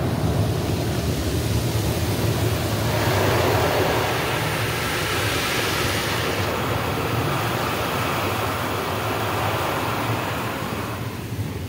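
Automatic car wash water jets spraying over the car, heard from inside the cabin: a steady rushing over a low rumble, growing stronger about three seconds in and easing off near the end.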